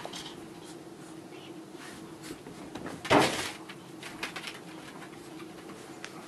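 Small dogs scampering during fetch play, with light claw clicks and patters on tatami and rug. About three seconds in there is one loud, short rustling thump. A steady low hum runs underneath.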